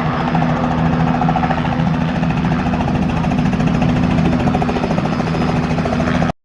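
Helicopter engine and rotor running with a fast, even pulsing over a steady low hum. The sound cuts off abruptly near the end.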